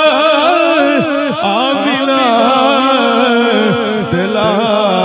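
Male voices chanting a Punjabi devotional naat refrain together over a microphone, several voices at once over a steadily held low note.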